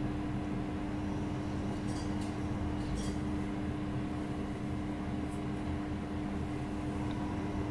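A steady low hum with one strong constant tone, from a running appliance or motor in the room. A few faint, short rustles come through about two, three and five seconds in, as a tail comb parts hair.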